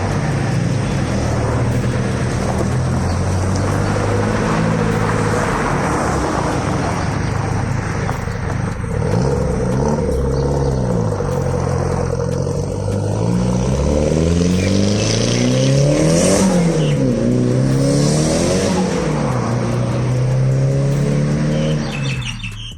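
Mitsubishi 4G63T turbocharged inline-four running after its overhaul and being revved several times. The pitch rises and falls, the biggest rev comes about two-thirds of the way through, and it settles back to a steady run near the end.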